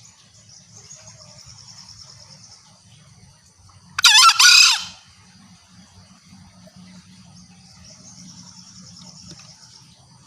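Green junglefowl crowing once: a short, loud, screechy two-part crow about four seconds in. Steady high insect buzzing runs underneath, swelling in two pulsing stretches.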